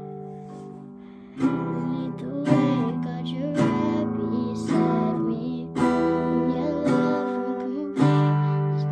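Acoustic guitar: a chord rings out and fades for about a second and a half, then strumming starts again with a new chord roughly every second. A young girl's voice sings along over the strumming.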